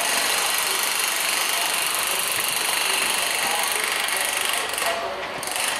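Czech Railways class 362 electric locomotive running light at walking pace, a steady loud hiss with a faint hum underneath that eases slightly near the end.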